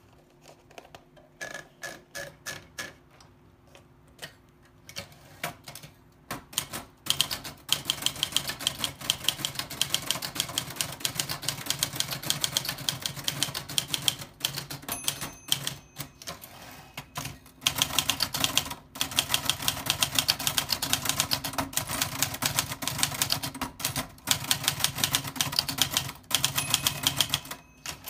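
Old typewriter being typed on: keys strike in a few scattered, slower clicks at first, then about seven seconds in break into fast, continuous typing with a few short pauses.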